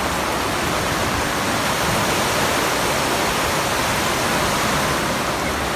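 Heavy rain pouring down, a steady, even rush.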